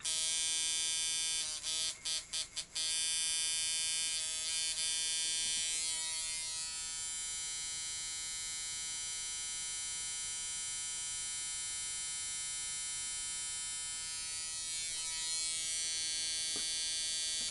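Rebuilt brass-frame coil tattoo machine with new WHI coils running with a steady electric buzz, tuned for a medium hit. It stutters on and off a few times about two seconds in, then runs steadily.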